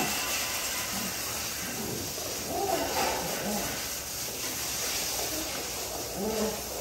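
Dogs in kennel runs whining, short rising-and-falling cries about a second in, around three seconds in and again near the end, over a steady background hiss.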